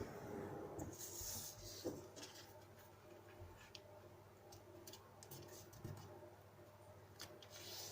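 A sheet of paper being folded and creased by hand: soft rustling with scattered faint taps.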